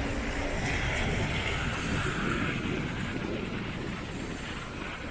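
Road traffic going by: a steady wash of vehicle and tyre noise that eases off gradually over the last few seconds.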